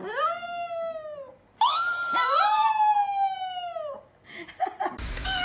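A Chihuahua howling: two long, high howls that rise and then fall away, the second with two howling voices overlapping. About five seconds in it cuts to a different, noisier clip.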